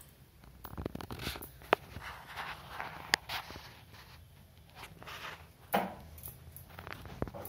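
Small scattered clicks, taps and rustles of objects being handled, with two sharp clicks and a duller thump near the end.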